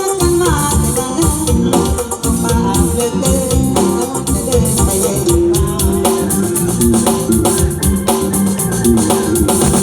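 Instrumental band music for a Thai lae song: a sustained keyboard-like melody over a steady beat, with shaker-type percussion.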